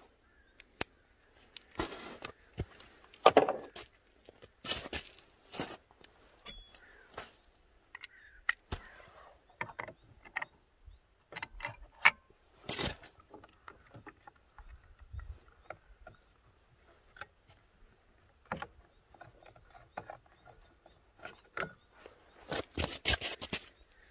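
Irregular metallic clicks, clinks and scrapes as the Honda Dio scooter's variator face is worked onto the crankshaft by hand with the drive belt in place, with a few louder clanks.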